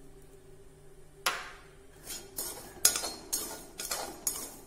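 Slotted steel ladle knocking and scraping against a metal frying pan as sugar is stirred into roasted semolina. One knock comes a little over a second in, then from about two seconds in a run of clinks about two a second.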